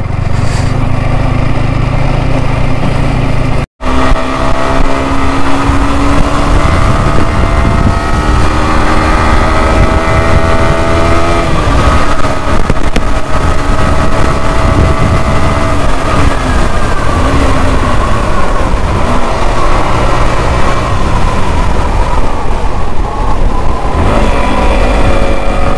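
Yamaha R15 V4's 155 cc single-cylinder four-stroke engine under way, its note climbing slowly as it pulls through the gears and dropping at a shift about twelve seconds in, over heavy wind noise on the microphone. The sound cuts out for an instant about four seconds in.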